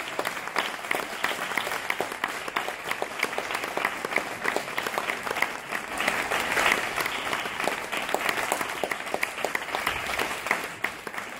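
Audience applauding: many hands clapping together in a steady, dense stream.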